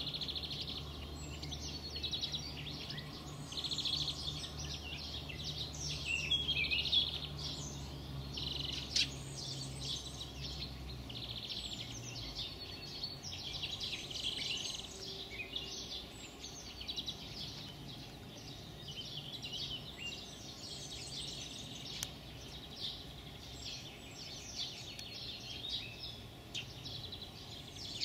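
Wild songbirds singing outdoors, a continuous run of high chirps and trills. A low steady hum sits underneath and stops about eleven seconds in.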